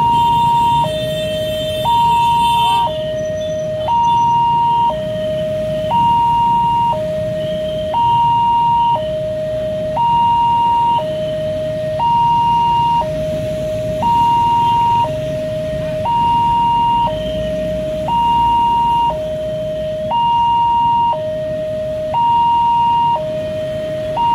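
Railway level-crossing warning alarm sounding a steady two-tone high-low pattern, each tone held about a second, over a low background rumble. It signals that the barrier is down and a train is approaching.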